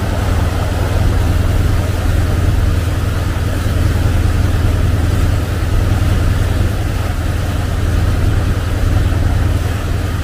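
The riverboat's eight-cylinder engine running steadily, a loud, even low drone.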